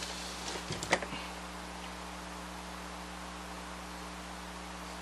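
Things being handled and set down on a workbench: a few light knocks and rustles in the first second, with one sharp click about a second in. After that only a steady low electrical hum and hiss remain.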